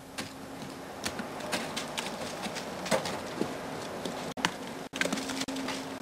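Ice tools and crampons striking the ice of a frozen waterfall: irregular sharp taps and knocks, several in a few seconds.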